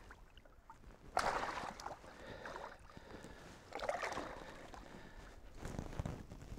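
Water splashing and sloshing in a landing net beside a boat as a netted muskie is unhooked, in several short bursts; the loudest comes about a second in, with more around two and a half and four seconds.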